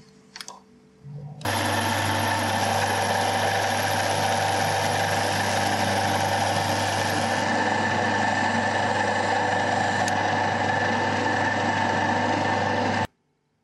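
Small metal lathe running with a steady low hum while a cutting tool faces the end of a spinning metal workpiece. The sound starts abruptly about a second and a half in and cuts off sharply near the end.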